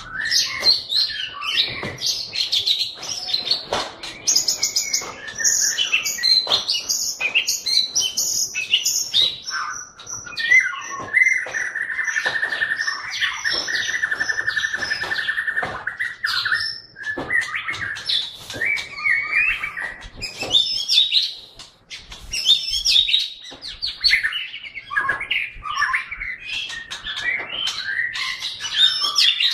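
Caged white-rumped shama singing a loud, varied song of quick whistled and chattering phrases, with a long, fast rattling chatter running from about 11 to 16 seconds in.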